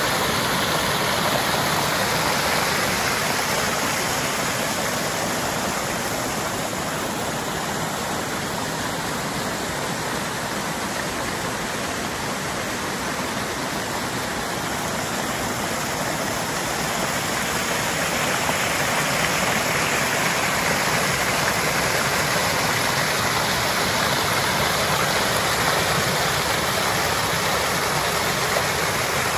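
Small stream waterfall: water cascading over rocks with a steady rushing splash, a little softer midway through.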